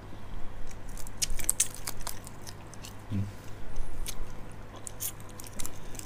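Close chewing and biting of giant water bugs (maengda), with many sharp, irregular crunches and crackles of their hard shells.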